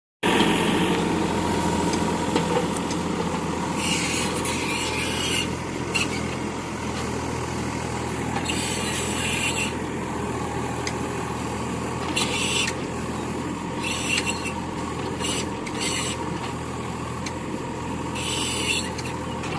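Mini excavator's Yanmar diesel engine running steadily, with several short bursts of high hissing over it.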